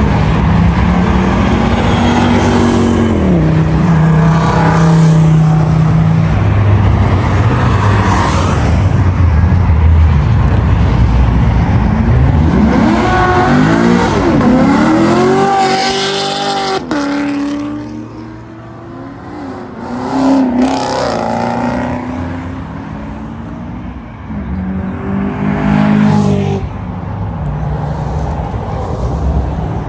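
Sports car and supercar engines revving and accelerating past one after another. About halfway through the engine notes climb in several rising sweeps, then a quieter spell follows before more cars pass.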